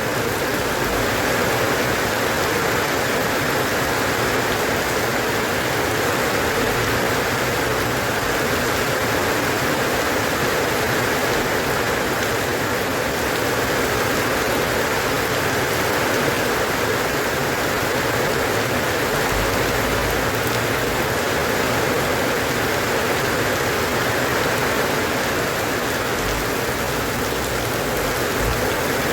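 Steady rain falling, an even hiss of many drops with no change in intensity.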